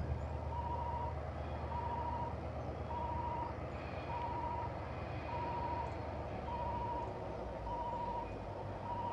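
Railway crossing warning alarm beeping steadily, one tone about every second, over the low rumble of approaching diesel locomotives.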